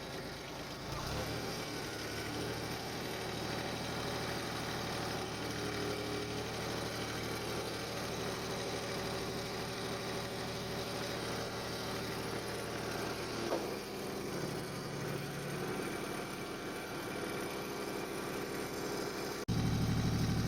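Small John Deere tractor's engine running steadily while pulling a rotary mower (bush hog) through weeds. Near the end the sound abruptly turns louder and deeper.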